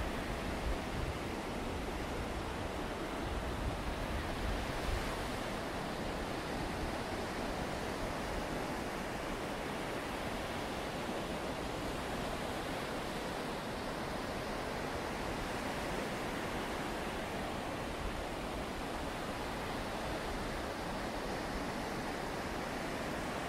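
Steady wash of sea surf on the beach, with some wind.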